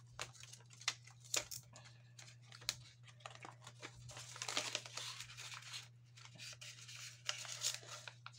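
Faint rustling and crinkling of paper banknotes being handled and slid into a clear plastic binder pocket, with a few light clicks and taps; the longest rustle comes about halfway through. A steady low hum sits underneath.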